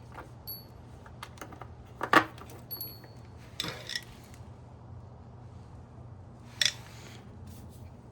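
Small metal screws and hardware being handled, clinking and clicking: a series of light taps, some with a brief metallic ring, the sharpest about two seconds in. A steady low hum runs underneath.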